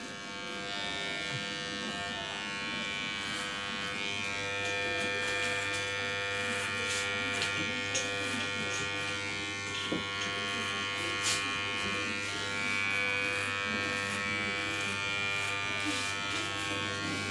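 Electric hair clipper running with a steady buzz as its blade cuts short hair at the side and back of a man's head.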